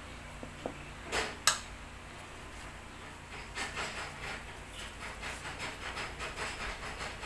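A metal spoon clicks twice, a little over a second in, as it scrapes off the filling, then a thin lumpia wrapper rustles softly and continuously as it is folded and rolled by hand around the pork filling.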